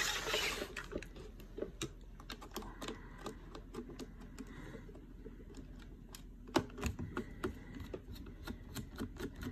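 Irregular small clicks and taps of a screwdriver turning out a screw from the plastic handle of a Dyson V8 vacuum, with the plastic body being handled, and a brief hiss at the start.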